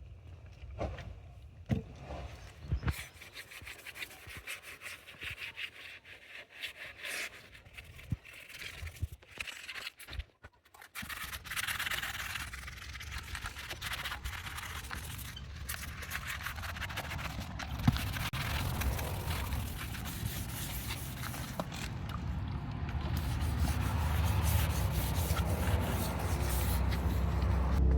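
Hand tools scraping and rubbing at the bottom of a door: short scrapes and clicks at first, then from about eleven seconds in a steadier stretch of scraping and rubbing that grows louder toward the end.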